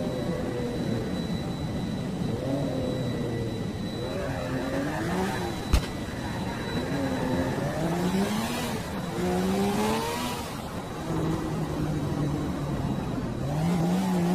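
An engine revving, its pitch rising and falling again and again, with one sharp click about six seconds in.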